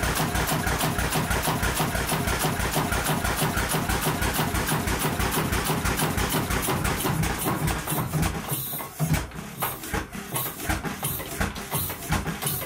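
Hundred-year-old Kromhout marine engine running with an even, rhythmic beat; about two thirds of the way through the beat slows, becomes uneven and the engine gets quieter.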